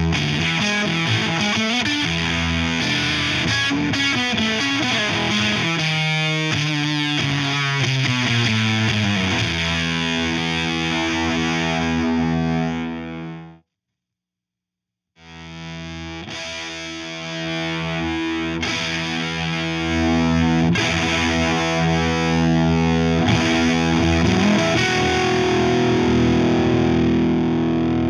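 Electric guitar played with distortion through the Veri-Tone Beehive pedal: a riff with a descending low line, let ring into a held chord that is cut off about halfway through. After a second and a half of silence the playing starts again and grows louder over the next few seconds as the pedal's volume control is turned up.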